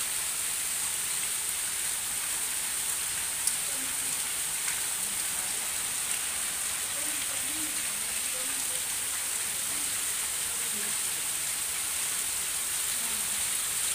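Heavy rain falling steadily: a constant, even hiss of downpour with no let-up.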